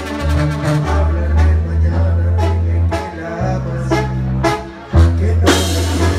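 Mexican brass banda playing live: a tuba bass line under trumpets and trombones, with drum hits. The band drops back briefly near the end, then comes in again with a loud accented hit.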